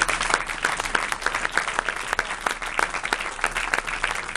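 Audience applauding, many hands clapping at a fairly even level.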